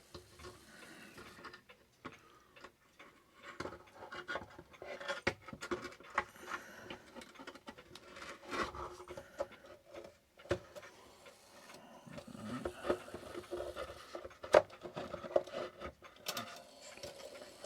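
A Herschede clock movement being worked into its case: irregular knocks, clicks and rubbing as metal meets the case, with one sharper knock near the end.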